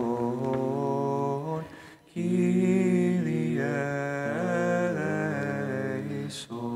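Byzantine chant: voices singing a slow, drawn-out melodic line over a held low drone (the ison), with a short breath break about two seconds in.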